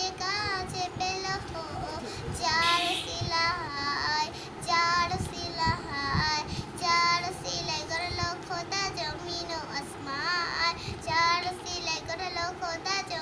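A young girl singing an Islamic devotional piece solo, in phrases of sustained notes with a wavering, ornamented pitch.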